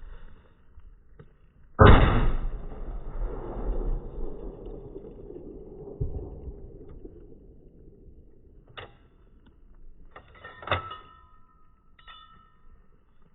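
A single shot from an Accuracy International .50 BMG rifle about two seconds in, very loud, with a long rolling echo that dies away over several seconds. Three sharp metallic clacks with a brief ringing follow in the second half.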